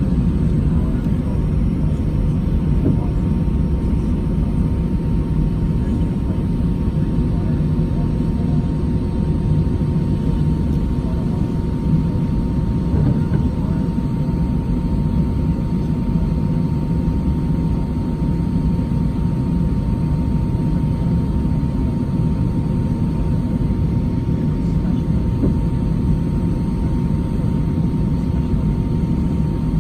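Steady low rumble of an Airbus A319's jet engines and airflow, heard from inside the passenger cabin, with a thin steady whine.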